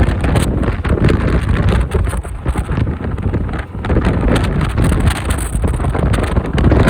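Typhoon wind buffeting the microphone of a camera riding on a motorbike: a loud, gusty rush that keeps rising and falling.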